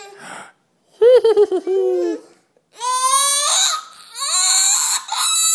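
Toddler crying: a short wavering cry about a second in, then long, loud wailing cries from about three seconds in.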